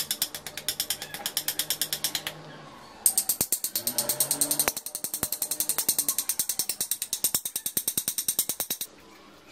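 A metal blade scraped rapidly back and forth along the edge of a marble strip, about eight strokes a second, trimming the stone to fit. The scraping pauses briefly about two and a half seconds in, then resumes and stops shortly before the end.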